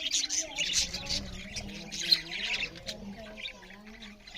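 Pet budgerigars chattering and squawking, a dense run of overlapping short chirps and harsh calls mixed with warbling.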